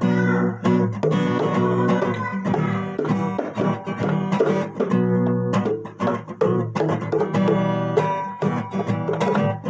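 Music: an instrumental passage led by plucked guitar, with no singing.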